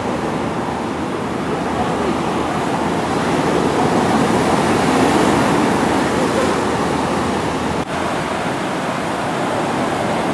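Ocean surf breaking and washing up the beach: a steady rushing that swells a little midway, with a brief break about eight seconds in.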